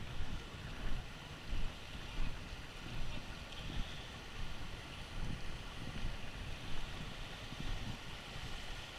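Wind buffeting the action camera's microphone in irregular low gusts, over the steady rushing hiss of a shallow stream running over rocks.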